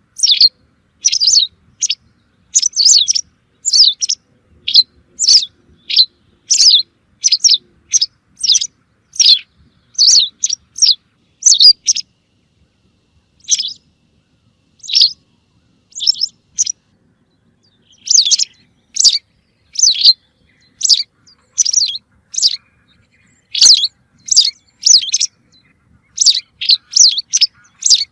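Recorded calls of the bird Arabic-speaking hunters call al-za'ra al-bayda, played as a hunting lure: a long run of short, high chirps, about one or two a second, thinning out for a few seconds midway before picking up again.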